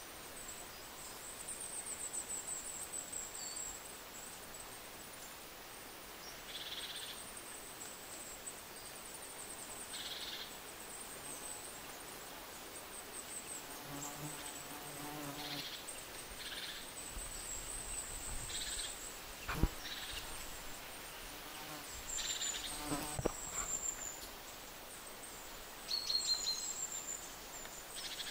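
Faint, high-pitched, pulsing insect-like chirr that comes and goes in short trills over quiet night ambience, with a few brief soft sounds and a single click near the middle.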